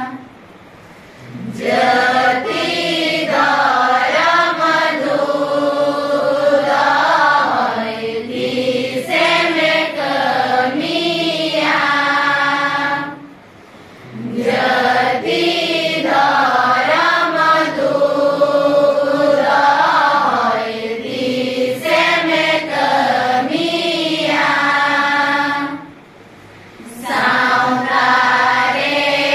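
A large group of young women and girls singing together in unison, unaccompanied, in long phrases with three short breaks for breath: near the start, about halfway through and near the end.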